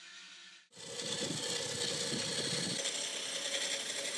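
Wood lathe running while a gouge cuts into a spinning pale-wood spindle blank. A rough, rattly cutting noise sits over the machine's steady running for the first couple of seconds, then the running carries on steadier.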